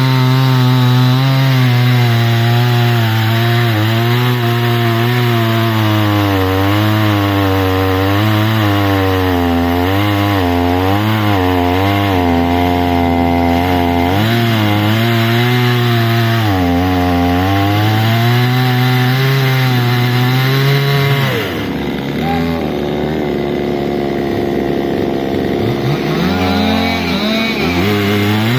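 Two-stroke chainsaw running at high revs while cutting wood, its pitch sagging and recovering as the chain is loaded in the cut. About 21 seconds in the revs drop and swing up and down, then climb back to full speed near the end.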